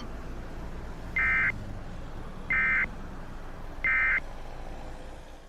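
Three short bursts of EAS digital data tones, the SAME end-of-message code that signals the alert is over, about 1.3 seconds apart over a steady low hum. All sound cuts off at the very end.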